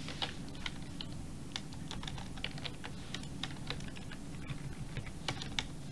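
Typing on a computer keyboard: a run of irregular key clicks, with a steady low hum underneath.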